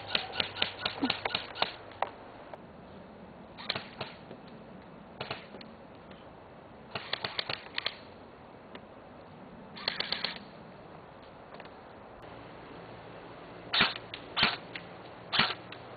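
Airsoft rifles firing: short bursts of rapid, sharp clicking shots every few seconds, with a long burst at the start and three louder single shots near the end.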